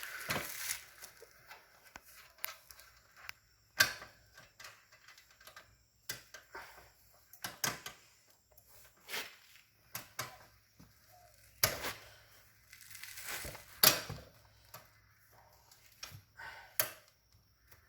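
Irregular metallic clicks, knocks and short scrapes of hand tools on an ATV's rear axle hardware as bolts are loosened to adjust chain slack.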